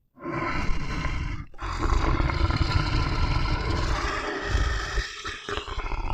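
A large animal roaring in deep, rough bouts: a short roar, then a longer one lasting about three seconds, and another starting a little before the end.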